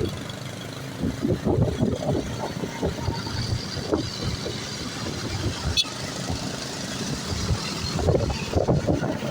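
Roadside traffic noise: vehicle engines running and passing, an uneven rumble with no horn melody.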